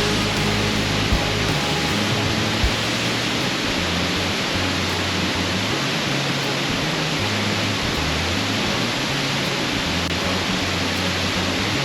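Steady roar of Tumalo Falls, a 160 ft waterfall: an even rushing noise that doesn't let up. Background music with low sustained notes plays underneath.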